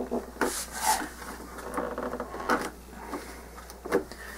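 Hands and a paper towel rubbing and scuffing against a model airplane's tail surfaces at the hinge line, wiping away glue around freshly set nylon hinges, with a few short swishes and knocks.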